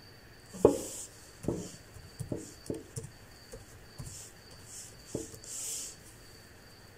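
Computer keyboard keys pressed one at a time at an uneven, hunt-and-peck pace, about eight knocks in all, the first about half a second in being the loudest. Soft hissy noises come between the keystrokes.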